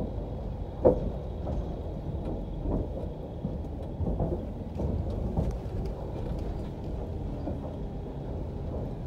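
Car tyres rolling slowly over the wooden plank deck of a steel-truss bridge: a low rumble broken by irregular knocks and clunks from the boards, the loudest about a second in.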